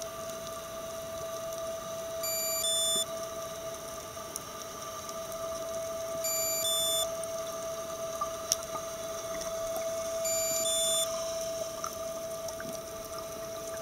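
Underwater sound picked up through a camera housing: a steady hum holding two tones, with a short cluster of electronic beeps repeating about every four seconds.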